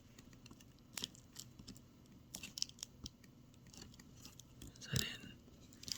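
Faint small clicks and scrapes of a laptop's display ribbon cable being slid out of its connector and pushed back in, with a louder brief brushing bump about five seconds in.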